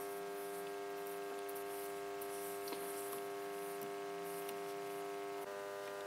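Steady electrical mains hum with many overtones from the homemade electric muffle furnace's heating circuit, with a few faint light ticks.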